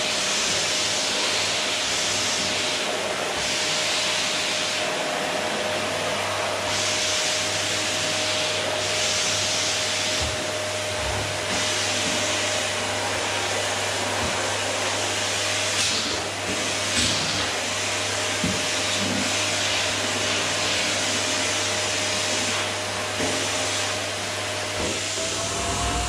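Electrolux canister vacuum cleaner running steadily with a constant motor whine. The suction hiss swells and eases every second or two as the floor nozzle is pushed back and forth over a wooden floor, with a couple of light knocks about two-thirds of the way through.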